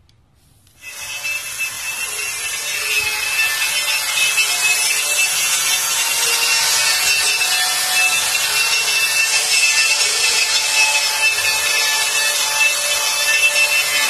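Electric angle grinder with an abrasive disc grinding rust off a steel diamond-plate sheet: a steady motor whine over loud scraping hiss, starting abruptly about a second in.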